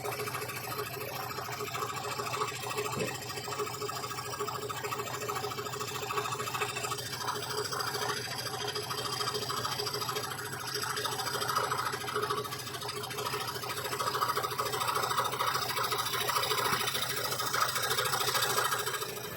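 Scroll saw running steadily, its blade cutting through MDF board.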